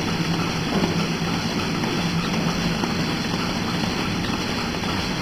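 Steady mechanical hum of milking-parlour machinery running, an even drone with a constant low tone and no breaks.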